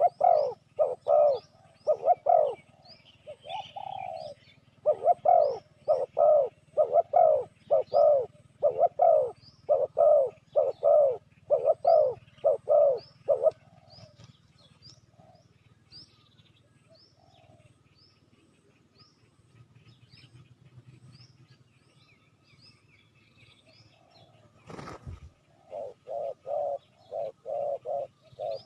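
Spotted dove cooing in a rapid run of low coos, about two a second, the lure call used to draw wild doves to a trap. The run stops about halfway through and resumes more quietly near the end. Faint high chirps sound throughout, and there is a single sharp click shortly before the cooing resumes.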